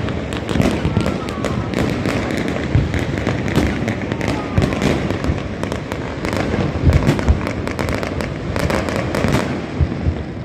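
New Year's fireworks going off all across a city at once: a continuous dense crackling and popping, with frequent heavier bangs mixed in.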